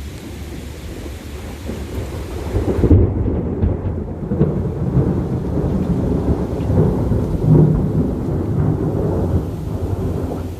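Rain hissing, then a long rolling rumble of thunder that swells in about three seconds and rolls on, loud and low, almost to the end.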